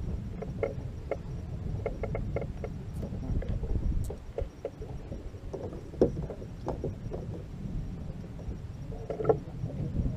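Low rumble of wind and water around a small boat, with scattered light knocks and taps against the hull and gear, the sharpest about six seconds in and another about nine seconds in.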